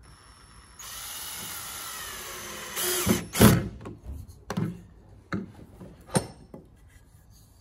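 Cordless drill driving a 4×30 wood screw through pine: the motor runs steadily for about two seconds, its pitch sagging slightly as the screw goes in, then a short loud burst about three seconds in as it stops. A few separate knocks follow as the drill is put down and the wooden pieces are handled.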